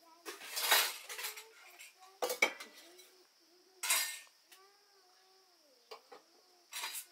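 Steel plates, bowls and cups clattering in several short bursts as they are handled and moved about on a kitchen shelf.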